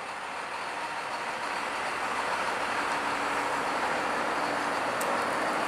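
John Deere tractor running steadily as it tows a folded trailed cultivator on its road wheels, the engine and rolling noise growing a little louder as it comes closer. There is a sharp click about five seconds in.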